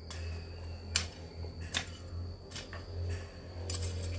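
Long-handled garden hoe chopping into dry, loose soil: a few sharp strikes, each a short while after the last, over a steady low hum.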